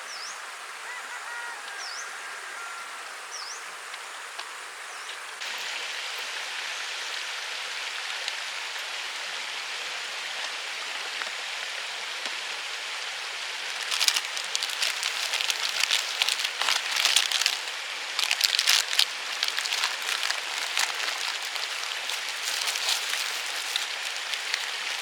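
Steady rain, getting louder about five seconds in, with dense irregular crackling taps of drops over it from about halfway.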